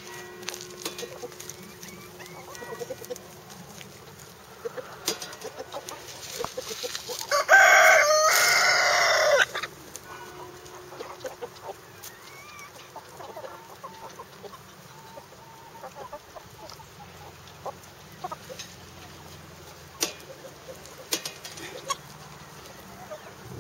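North Holland Blue chickens clucking softly while they scratch about, with a rooster crowing once, loud, for about two seconds, some seven seconds in.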